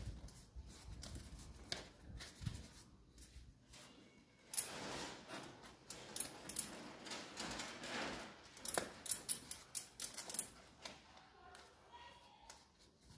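Road-bike tyre being worked onto the rim by hand: faint rubber rubbing and scraping against the rim, with short clicks in uneven bursts.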